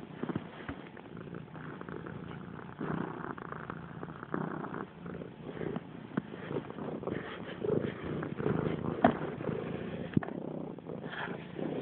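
Domestic cat purring steadily close to the microphone while kneading, with scattered soft clicks and rustles, the sharpest click about nine seconds in.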